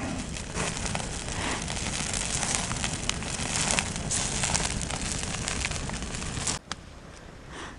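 Wood campfire crackling, with many small sharp pops and snaps over a steady hiss. It stops abruptly about six and a half seconds in, leaving a fainter steady hiss.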